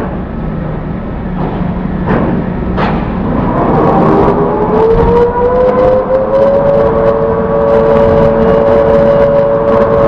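Cargo crane's hoist motor lifting a slung bundle of pipes out of a ship's hold: a whine that climbs in pitch over about three seconds, then holds steady. A few sharp knocks come in the first seconds, before the whine starts.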